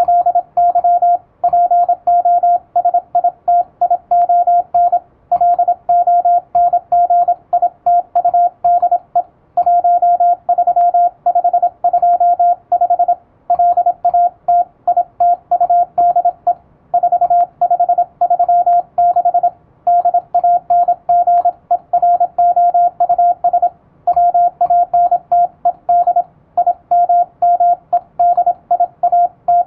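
Morse code sent at high speed with an electronic keyer: a single steady sidetone keyed rapidly into dots and dashes, in word groups separated by short pauses.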